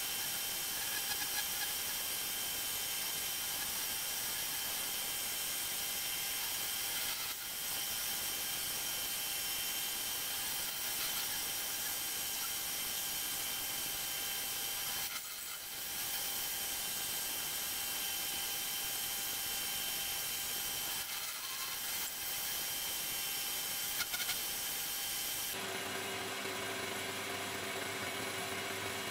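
Homemade metal lathe running steadily while a cutting tool turns a small metal part: the motor and spindle hum with steady tones over the hiss of the cut. The machine's tone changes near the end.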